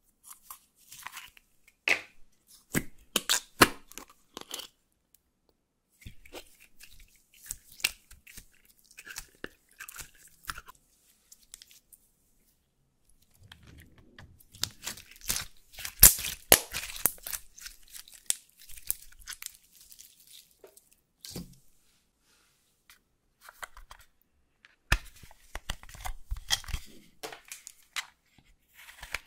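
Close, intermittent sticky crackling and popping of clear slime being stretched and pulled apart by hand, densest in the middle. Near the end comes a scratchy crackle as a pointed tool scrapes into pressed eyeshadow in a palette.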